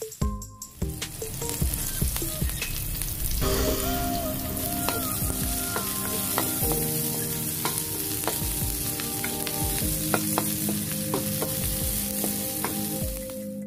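Onion, garlic and ginger sizzling in hot oil in a wok, with a wooden spatula stirring and scraping across the pan. The sizzle drops away briefly just after the start.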